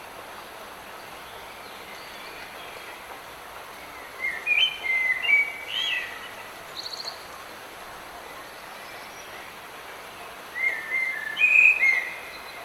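Light rain making a steady hiss while a songbird sings two phrases of quick, sliding whistled notes, the first about four seconds in and the second about ten seconds in, with a short high trill between them.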